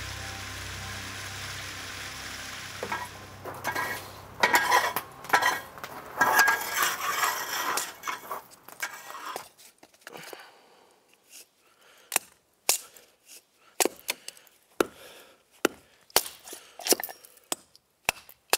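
Hatchet splitting kindling on a chopping block: sharp wooden knocks and cracks, dense and clattering at first, then single strikes about once a second in the second half. A few seconds of steady hiss come before the chopping begins.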